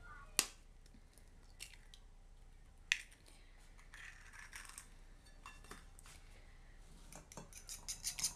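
Raw eggs being cracked on the rim of a ceramic bowl: two sharp cracks about two and a half seconds apart, then a few faint clicks of shell. Just before the end a fork starts clicking rapidly against the bowl as the eggs are beaten.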